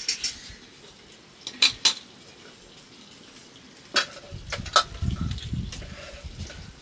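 Dishes and eating utensils clinking during a meal: several sharp clinks, paired near two seconds in and again around four to five seconds in, with a low muffled rumble for a couple of seconds after the later clinks.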